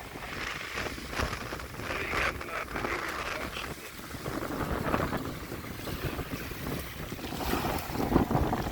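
Gusty wind buffeting the microphone in uneven surges, over the wash of waves on the water.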